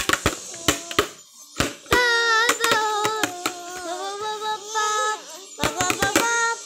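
A child singing a few long held notes whose pitch bends and slides, while a hand taps sharply close to the microphone, about a dozen times, mostly at the start and again near the end.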